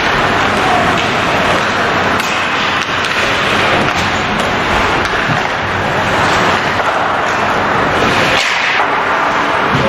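Ice hockey game in an arena rink: a steady, loud wash of rink and crowd noise with a few sharp stick-and-puck clacks.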